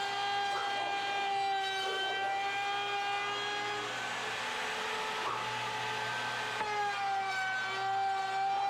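Electric router running at high speed, cutting into a wooden window ledge. A steady whine whose pitch sags a couple of times as the bit bites into the wood, then recovers.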